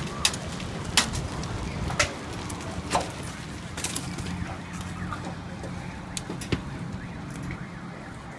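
Road traffic on a wide multi-lane road making a steady low rumble. Sharp, short chirps cut through it about once a second over the first three seconds, with a few more scattered later.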